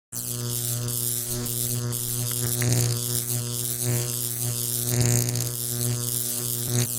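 High-voltage electrical buzz: a steady, loud hum overlaid with sizzling, crackling arcing. It starts abruptly and swells a little a few times.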